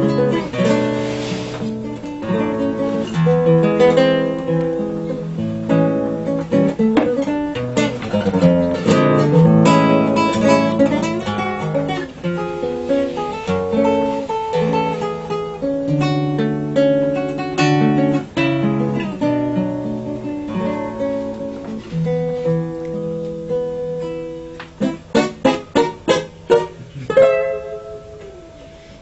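Classical acoustic guitar played solo, plucked notes and chords in a continuous melodic passage. About 25 seconds in comes a run of short, clipped chords, then it softens.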